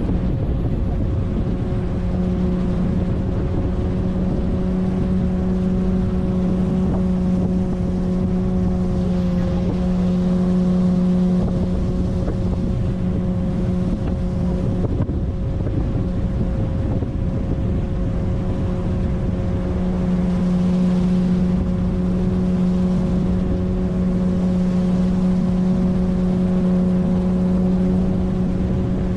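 A 9.8 hp outboard motor running steadily at a constant cruising speed, pushing an inflatable boat along a river, with a faint hiss of water and wind underneath.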